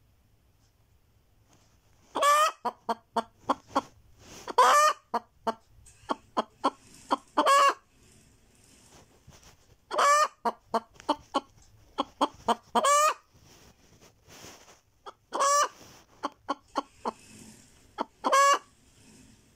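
Naked-neck hen cackling: a loud, drawn-out squawk about every two and a half to three seconds, each followed by a run of short clucks. This is the hen's egg-laying cackle.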